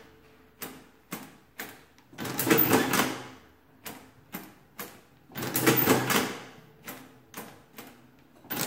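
Victor manual adding machine in use: several short sharp clicks as number keys are pressed, then a loud mechanical clatter of about a second as the hand crank is pulled through its cycle to add and print. This happens twice, and a third crank pull starts at the end.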